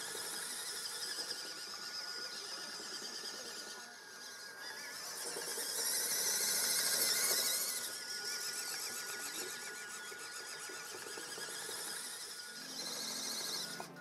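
WPL B36 Ural remote-control truck's small electric motor and gearbox whining as it drives, with a steady high whir that swells as the truck passes close, about halfway through. Background music comes in near the end.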